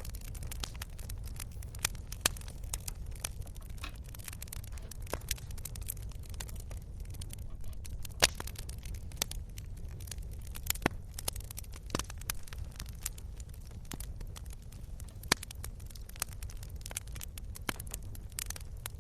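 Wood fire crackling: irregular sharp pops and snaps over a steady low rumble, with one louder pop about eight seconds in.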